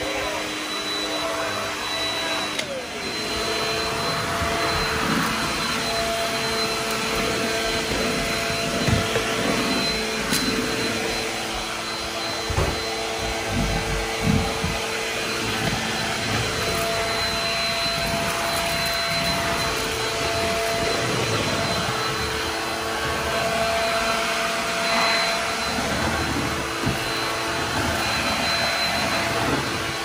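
Shark DuoClean upright vacuum cleaner running steadily with a constant motor whine as it is pushed across the floor, first over carpet and later over hardwood, with a few low thuds around the middle.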